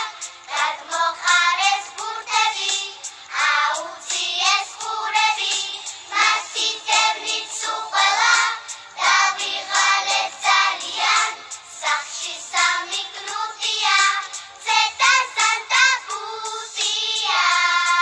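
Young girls singing a Georgian children's song about three kittens over a backing track, in high children's voices, ending on a long held note.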